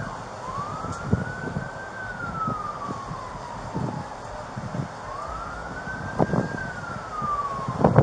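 Emergency siren wailing, its pitch slowly rising and falling about every four to five seconds, with scattered short low thumps and knocks.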